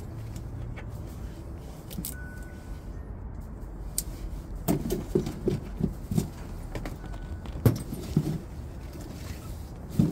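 Scattered knocks and light metallic clatter as sheet-metal parts and tools of a heat pump's outdoor unit are handled: a cluster of short knocks about halfway through, a sharper knock a little later and another near the end, over a steady low background.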